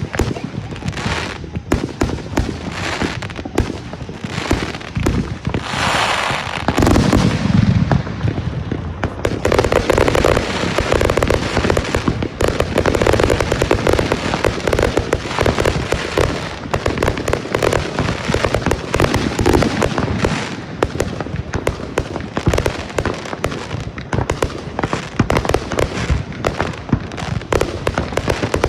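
Consumer fireworks going off in rapid succession: sharp bangs and crackles, with a falling sweep around six seconds in, then a near-continuous barrage of reports from about a third of the way through.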